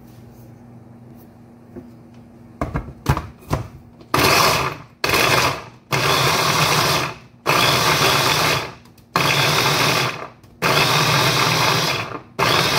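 Small electric mini chopper grinding raw cauliflower florets into cauliflower rice. It runs in short pulses of one to one and a half seconds, about five times in a row, after a few knocks as the motor top is put on the bowl.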